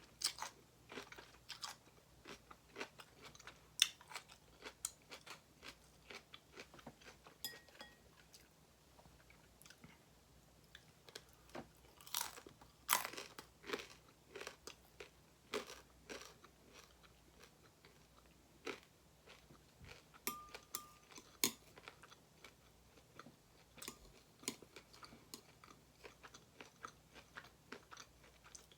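Close-miked eating: food being bitten and chewed with many irregular crisp crunches, the loudest a little under halfway through.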